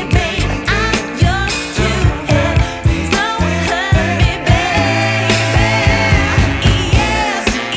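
Pop song with a female lead vocal and a steady drum beat over a bass line.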